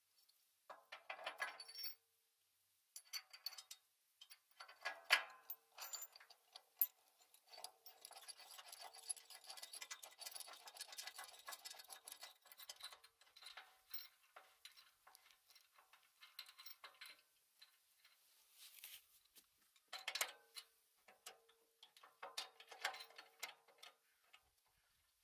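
Small metal clicks, clinks and scrapes as a steel bolt with a spacer sleeve and washer is handled and pushed through a hole in a steel shredder panel. A faint ringing note follows some of the knocks.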